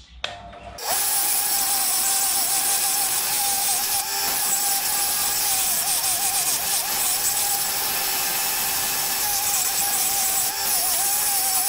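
An Ozito combination bench grinder and linisher running, its sanding belt grinding paint and burrs off short steel tube inserts. A harsh grinding noise with a steady motor whine starts about a second in and goes on without a break.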